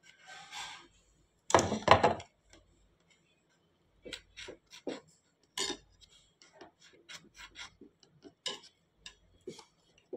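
Steel kitchen knife scraping and clicking against an aluminium baking tin as squares of set barfi are pried loose. There is a louder scrape about one and a half seconds in, then a run of short light clicks and taps.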